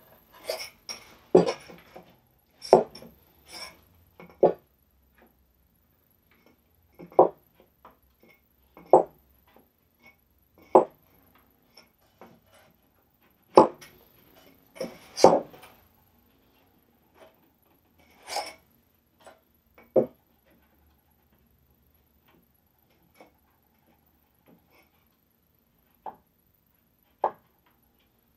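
Irregular wooden knocks and taps as plywood pieces are handled, set down and shifted inside a plywood box, with quiet gaps between them.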